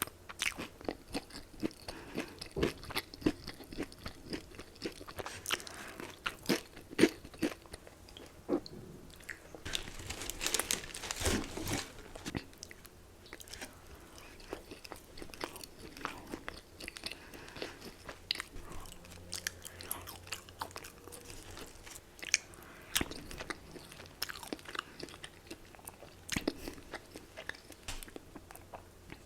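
Close-miked biting and chewing of crispy fried chicken, sharp crunches of the breading again and again, thickest about ten to twelve seconds in and thinning to sparser chewing afterwards.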